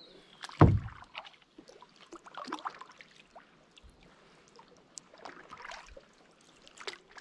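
Kayak paddling: the paddle blades splash and drip water in patches every two to three seconds, with scattered small clicks. A single loud, deep thump about half a second in is the loudest sound.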